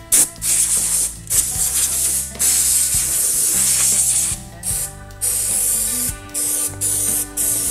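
About half a dozen short hissing spray bursts, each up to a second or two long with brief pauses between, over quiet background music.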